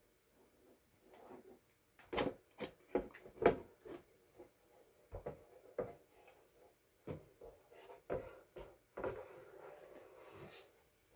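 Handling noise of a toy ship being tipped and lowered by hand: a quick run of light knocks and clicks, more scattered knocks, then a longer scraping rub near the end.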